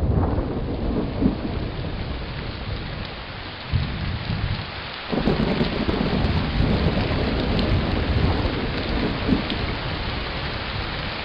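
Heavy rain falling steadily, with thunder rumbling and rolling underneath; a fresh roll of thunder comes about five seconds in.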